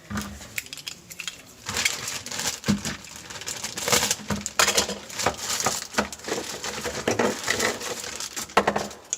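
Hands handling a new refrigerator evaporator fan motor and its parts: irregular crinkling and rustling with many small clicks and knocks.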